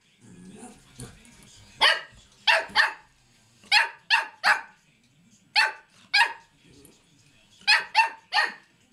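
Bedlington terrier puppy yapping in play: eleven short, high-pitched barks, one alone, then in quick pairs and triplets with pauses of about a second between groups.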